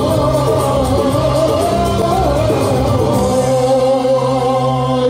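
Music with a singer holding long notes over a steady backing.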